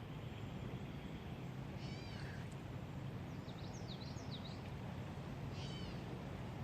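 Bird calls: a few short high arching notes about two seconds in, a quick run of sharp notes in the middle, and another arching call near the end, over a steady rush of wind and stream noise.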